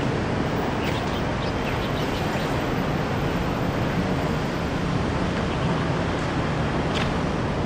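Steady outdoor background noise, an even rush with no breaks, with a few faint, short, high chirps about a second in and again about seven seconds in.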